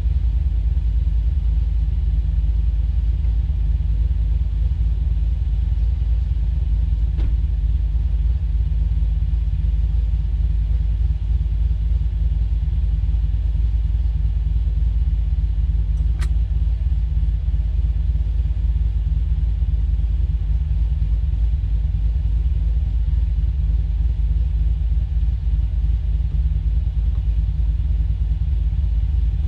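Steady low rumble of a vehicle driving at an even speed, with two faint clicks, one about a quarter of the way in and one about halfway.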